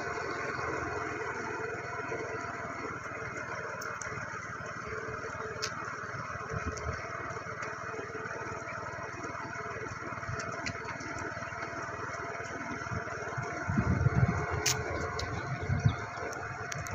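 Steady engine and road noise of a slow-moving vehicle keeping pace just ahead of a group of joggers, with a few low wind-like bumps on the microphone a few seconds before the end.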